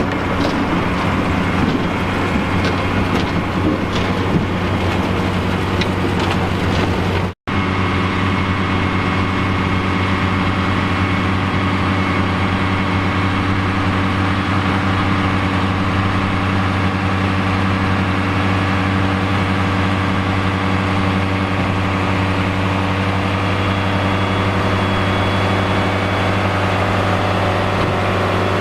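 Fiat 110-90DT tractor's diesel engine running steadily at an even speed, with light clicks and rattles over the first few seconds. The sound drops out for an instant about seven seconds in, then the engine carries on unchanged.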